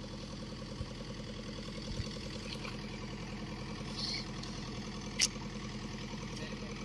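Excavator's diesel engine idling steadily with an even, fast pulse. A single sharp click or knock comes about five seconds in.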